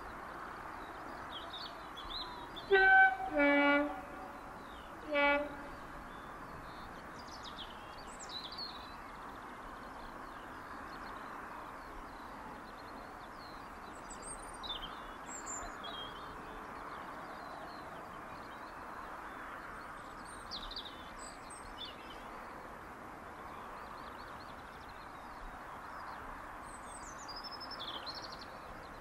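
Diesel locomotive sounding its two-tone horn in the distance: a short high note then a longer low note about three seconds in, followed by a short low blast. Birds chirp throughout.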